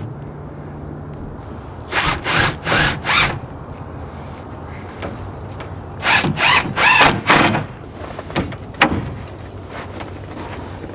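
Cordless drill driving screws into wooden trim boards in two runs of short trigger bursts, about four and then about five, followed by a single sharp knock near the end.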